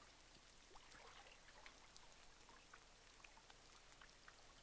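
Near silence with faint, scattered drips and small splashes of water around a canoe.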